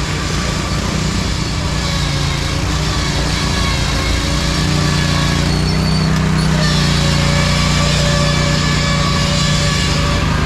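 Riding lawn mower engine running steadily under throttle, growing a little louder about halfway through.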